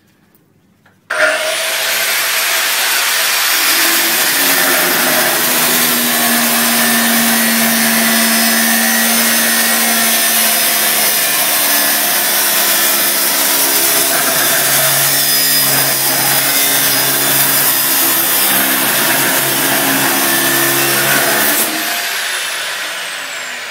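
Makita angle grinder started about a second in, its disc whine rising quickly to full speed, then cutting into a large steel pipe with a loud, steady grinding screech and ringing tones from the pipe. Near the end it is switched off and the whine falls as the disc spins down.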